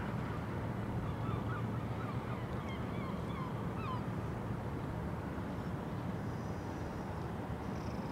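A steady low rumble, with a short series of honking bird calls, several in a row, from about one to four seconds in.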